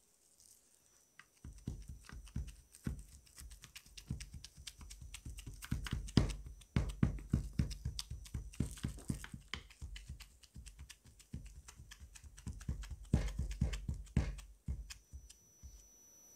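Buttery cookie-crumb crust being tamped down into a stainless steel ring mould with a plastic-wrapped tamper: a rapid run of dull thumps and crumbly clicks, starting after a second or so, with a short break about halfway, and stopping near the end.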